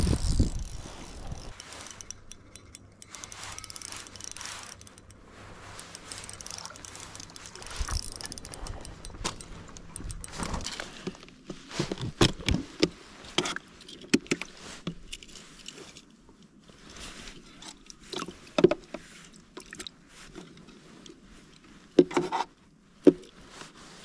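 Handling noises from a small fishing cooler and tackle: rustling, scraping and irregular clicks, with two sharp knocks near the end.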